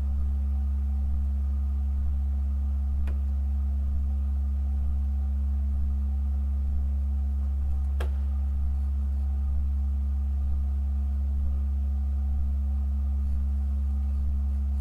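Pipe organ holding a deep, unchanging low note with a quieter tone above it and faint higher pitches, with no attack or change. Two short clicks, about three and eight seconds in.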